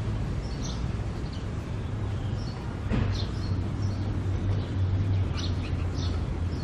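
Outdoor ambience: small birds chirping in short high calls over a steady low rumble, with one brief knock about three seconds in.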